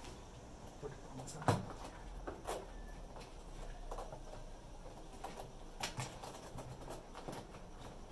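Scattered small clicks and knocks of washing-machine parts being handled and fitted together during reassembly, the loudest knock about one and a half seconds in.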